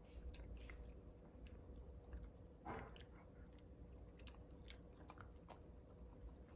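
A standard poodle puppy gnawing on a chew stick: faint, repeated crunching and clicking of teeth on the stick, with one louder crunch a little under three seconds in.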